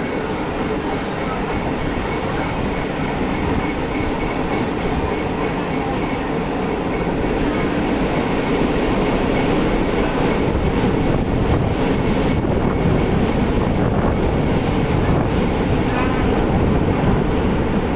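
Electric multiple unit (EMU) suburban train running along the track, heard from on board: a steady rumble of wheels on the rails, growing louder about halfway through.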